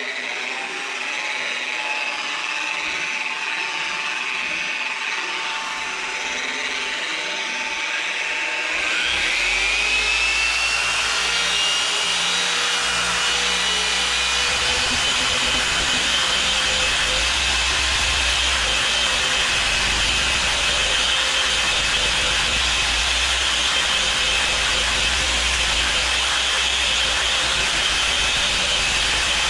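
Dual-action orbital polisher with a foam pad running on a painted boot lid, cutting and buffing the paint. It starts up with a steady motor whine, then about nine seconds in it speeds up to a higher, louder whine that holds steady.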